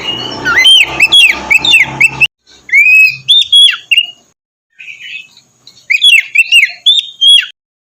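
Oriental magpie-robin (kacer) singing loud, whistled phrases of notes that slide up and down. The song comes in three bursts with brief breaks between them.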